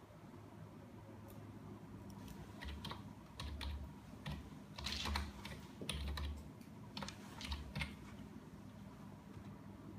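Computer keyboard being typed on: an irregular run of key clicks, a word typed out key by key, starting after a couple of seconds and stopping a couple of seconds before the end.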